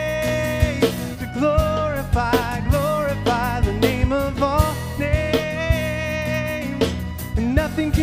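Worship band playing a contemporary worship song: a voice sings the melody over guitar and a drum kit with a steady beat.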